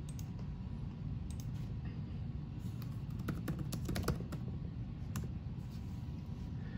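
Typing on a laptop keyboard: a quick run of key clicks in the middle, with a few scattered clicks before and after, over a steady low hum.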